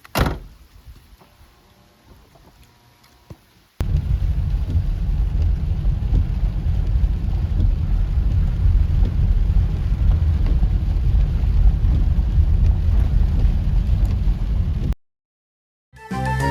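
A single sharp knock just after the start. About four seconds in, a loud, steady, deep rumbling noise sets in and cuts off abruptly near the end.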